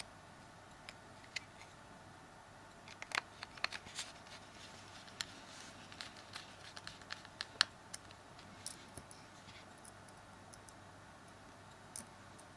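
Light clicks and scratches of a small Phillips screwdriver and tiny screws being fitted into a Samsung Galaxy S3's frame, coming thickest in the middle, over a faint steady hum.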